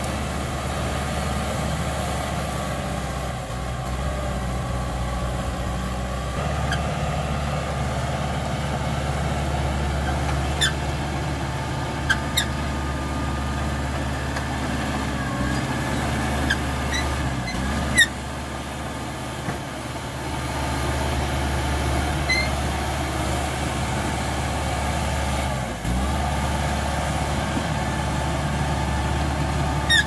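Caterpillar D5K XL crawler bulldozer's four-cylinder diesel engine running steadily under load as it pushes soil and brush, its note dipping briefly now and then. A few short, sharp squeaks come through, several of them in the middle.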